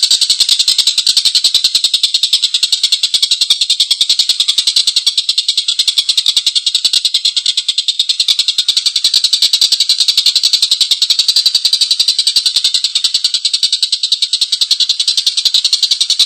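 Tengkek buto kingfisher giving a long, harsh, rapid cackling chatter, the notes repeating fast and without a break.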